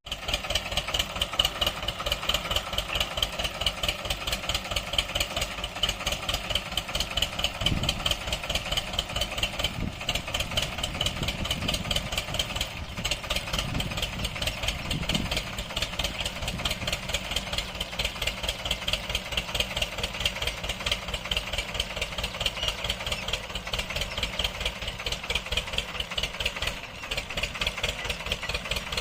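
Tractor engine running steadily with a rapid, even chug, with a few louder low thuds near the middle.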